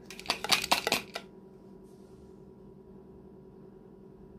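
Lidded glass jar of hot green peppers in oil being shaken by hand, its contents and lid rattling and clinking against the glass for about a second before it stops.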